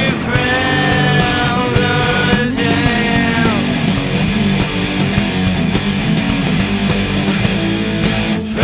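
Rock music soundtrack playing steadily.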